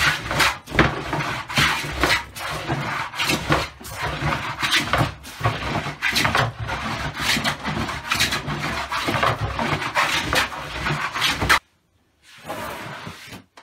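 Hand plane shaving across a wooden tabletop: repeated scraping strokes, roughly one a second. The strokes stop abruptly near the end, and a brief softer rub follows.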